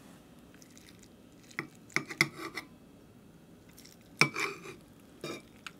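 Chef's knife slicing down through a molded gelatine meatloaf and clinking against the ceramic plate beneath it: a cluster of clicks about two seconds in, the loudest clink a little after four seconds, and a couple of lighter taps near the end.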